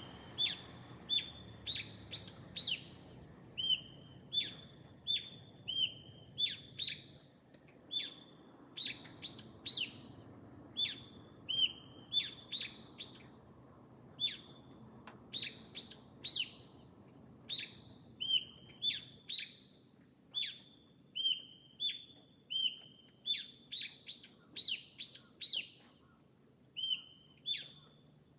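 A small garden bird chirping over and over: short, sharp calls about one or two a second, without a break.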